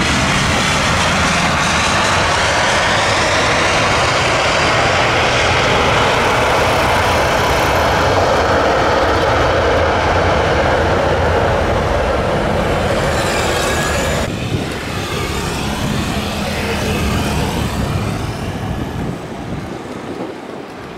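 Airbus A320 jet engines at takeoff power during the takeoff roll: a loud, steady roar. About fourteen seconds in it gives way abruptly to a quieter jet sound from another A320 coming in to land.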